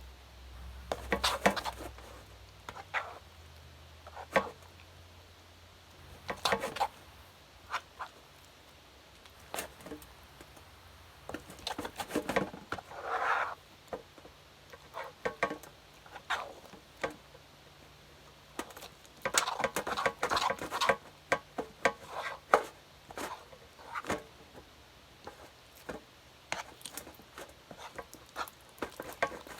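Spoon stirring slime in a bowl as the activator is mixed in: irregular clicks and scrapes of the spoon against the bowl, in short bursts with quiet gaps between.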